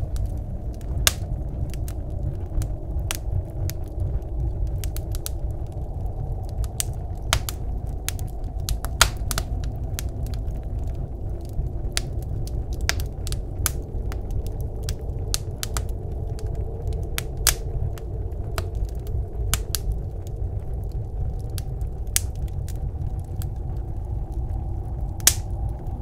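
Wood fire crackling in a wood stove, with irregular sharp pops, a few louder ones, over a steady low rumble of blizzard wind.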